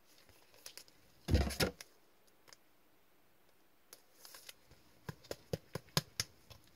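Hands handling hockey cards and hard plastic toploader card holders: a thud about a second and a half in, a short rustle around four seconds, then a run of light clicks.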